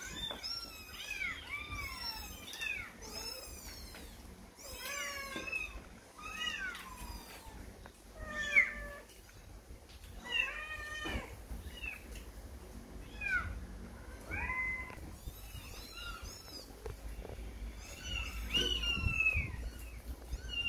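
Kittens mewing over and over: high, arching meows, about one a second, a few louder than the rest.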